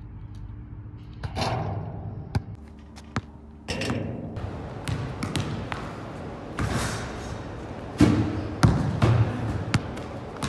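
A basketball bouncing on a hardwood gym floor: several sharp bangs close together near the end, each followed by a short ring. Before that comes a quieter stretch with only a few light knocks.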